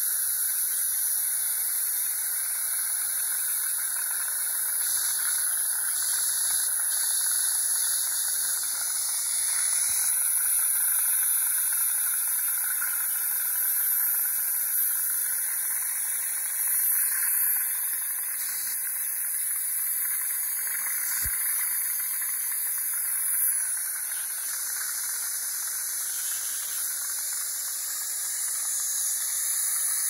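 Dental high-volume suction hissing steadily while an ultrasonic scaler sprays water on the teeth, the spray drawn off through a DryShield mouthpiece and a Nu-Bird suction mirror.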